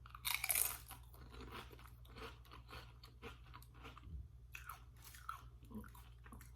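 A Doritos tortilla chip bitten with a loud crunch about half a second in, then chewed with many short, crackly crunches.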